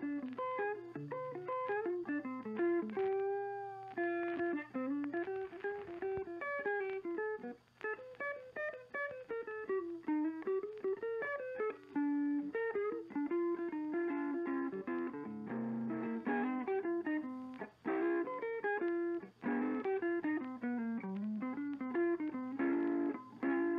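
Background music: a guitar playing a quick plucked melody over a steady low bass note.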